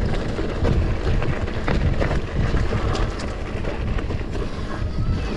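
Wind rumbling on the microphone while a mountain bike rolls over a rough dirt singletrack, with frequent small clicks and rattles from the bike.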